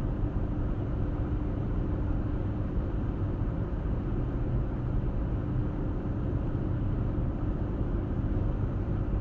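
Steady road noise of a car driving at an even speed: a low drone of tyres and engine, with a faint steady hum.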